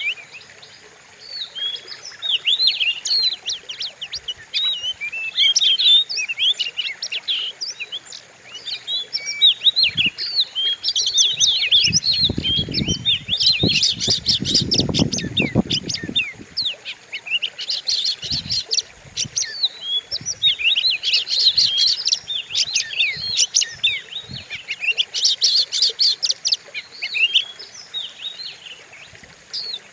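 Oriental magpie-robin (kacer) singing a fast, unbroken run of sharp, sweeping whistled and scratchy notes. A low muffled noise runs for a few seconds about halfway through.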